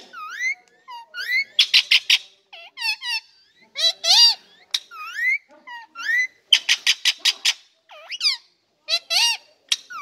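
Indian ringneck parakeet calling and chattering: a run of short, high-pitched whistled notes that glide up and down, broken by two quick clusters of harsh, rapid squawky notes, about two seconds in and again past the middle.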